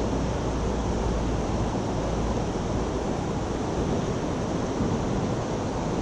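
Steady rushing of flowing creek water, with a deeper rumble in the first couple of seconds.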